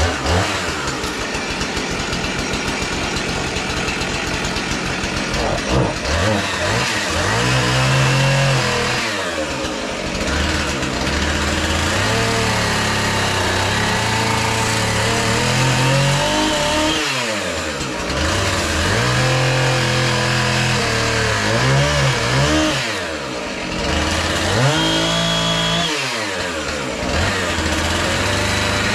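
Husqvarna chainsaw running under load, cutting through a large log offcut. The engine pitch sags and climbs again repeatedly, with brief dips several times as the throttle is eased and opened again.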